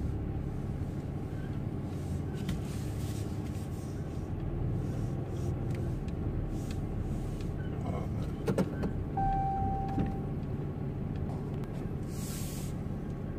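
Pickup truck engine running at low speed, heard from inside the cab, as it creeps through a turn. A few clicks and a short single beep come about eight to nine seconds in, and a brief hiss near the end.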